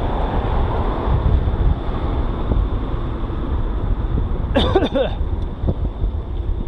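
Steady wind buffeting a moving action camera's microphone, a loud low rumble, with one brief wavering high-pitched sound a little past two-thirds of the way through.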